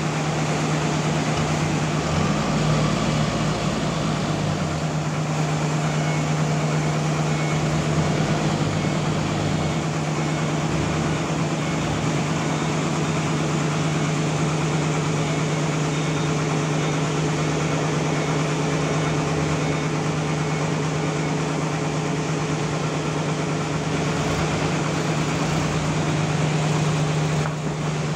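Sawmill running steadily: a constant machine hum under a dense, even noise.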